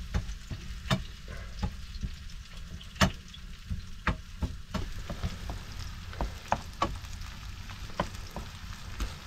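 Eggs and chopped wild kiriş greens sizzling in a frying pan while being stirred, the utensil tapping and scraping against the pan at irregular moments, with the sharpest tap about three seconds in.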